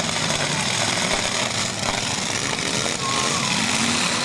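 Demolition derby cars' engines running and revving together, a loud, steady din with the pitch rising and falling.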